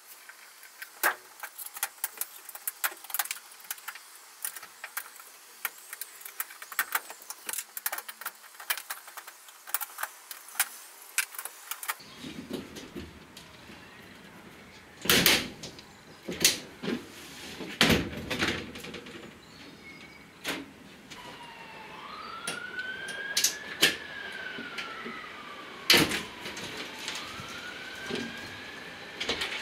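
Plastic trim clips clicking and popping as the door card is prised off a Peugeot Boxer van's rear door, a rapid scatter of sharp clicks. Several louder knocks follow in the second half as the panel comes free. A faint siren wails up and down near the end.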